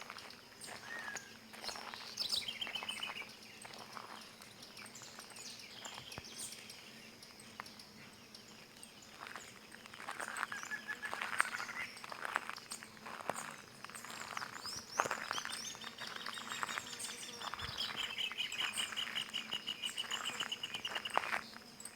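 Several songbirds singing and calling with short chirps and whistles, then a long, fast, evenly pulsed trill from about two-thirds of the way in until near the end, over a faint steady insect drone.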